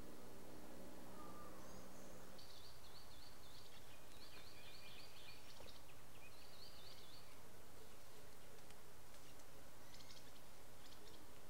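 Faint natural ambience: birds calling in short warbling phrases from a few seconds in, over a steady low hum and hiss.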